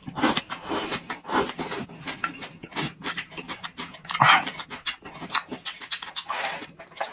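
Close-miked mouth sounds of a person eating: wet chewing and lip-smacking, with many irregular clicks and several breathy gusts.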